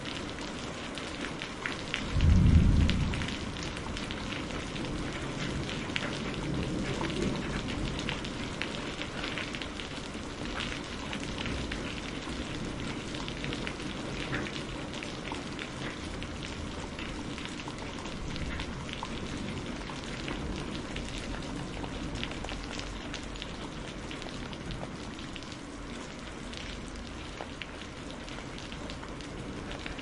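Steady rain pattering, with a loud, deep crack of thunder about two seconds in and a lower rumble a few seconds later.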